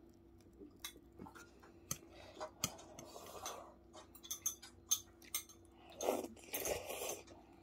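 Metal chopsticks clinking and tapping against a pot and bowl in scattered light clicks while ramyeon is eaten, with a louder stretch of eating noise near the end.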